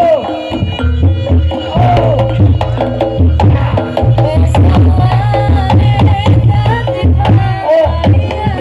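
Reog Ponorogo gamelan music: drums struck in a busy rhythm and deep gongs under a reedy slompret melody that bends and slides in pitch.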